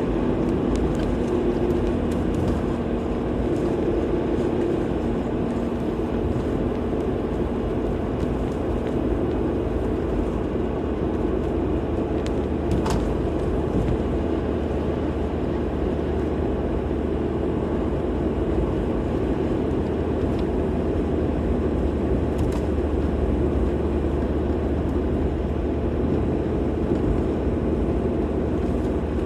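Steady road noise of a car driving: a continuous rumble of tyres and engine with no change in speed.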